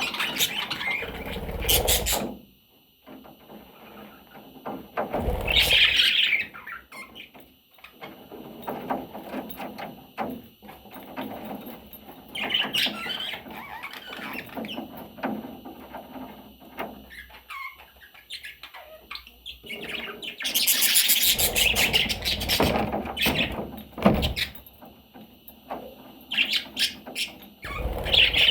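Budgerigar chirping and chattering in bursts several seconds apart, with occasional low thuds and rustling.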